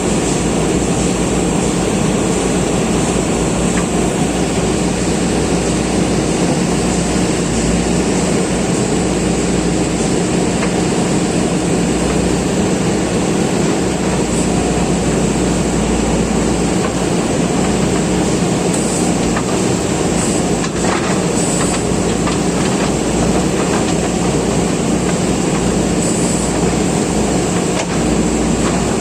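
JCB backhoe loader's diesel engine running steadily under work.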